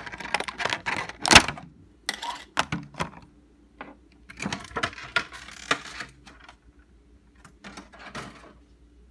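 Hard plastic handling: a run of clicks, taps and crinkles from a clear plastic packaging insert and a vinyl figure with its stand, with one loud knock about a second and a half in, the taps growing sparse in the last few seconds.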